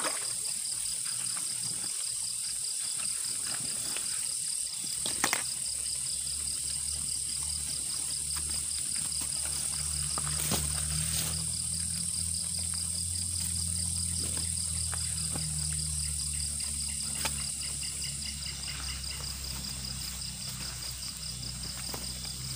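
Crickets and other night insects trilling steadily in two high-pitched bands, the lower one pulsing rapidly. A low steady hum comes in about five seconds in and is loudest in the middle, with a few sharp knocks.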